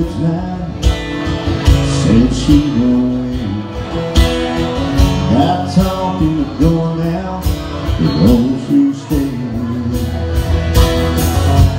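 Country band playing live: strummed acoustic guitar, electric guitar and a drum kit in the song's instrumental opening, heard through the PA in a bar.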